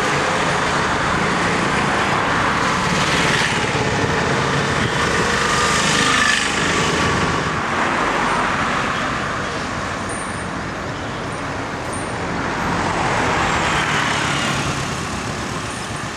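Road traffic noise from motor vehicles passing, swelling as vehicles go by around four to six seconds in and again around thirteen seconds in.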